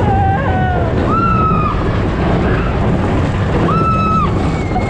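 Big Thunder Mountain Railroad mine-train roller coaster in motion: a loud steady rumble of the train with rushing wind on the microphone. Short high-pitched squeals sound twice, about a second in and again near four seconds in.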